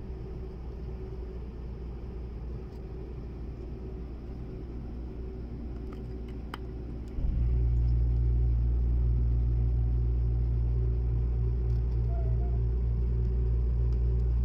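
Steady low rumble inside the carriage of a Seibu Laview limited express train, with a faint hum over it. About halfway through, the rumble suddenly steps up much louder and holds at that level.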